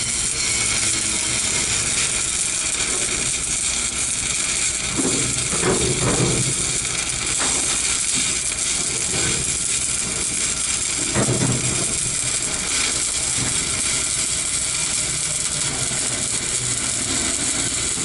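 Stick (SMAW) welding arc crackling steadily as a rod burns in, with two brief low swells of sound partway through.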